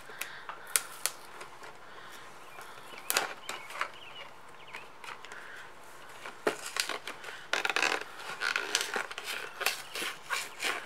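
Cardboard collector's box being handled and opened by hand: scattered clicks, taps and scrapes of the card, coming thicker in the last few seconds.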